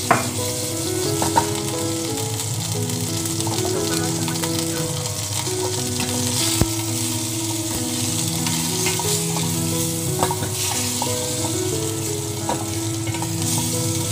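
Chicken pieces sizzling as they fry in olive oil in a stainless steel saucepan. A metal ladle stirs them, clicking against the pan now and then. Background music with held notes plays underneath.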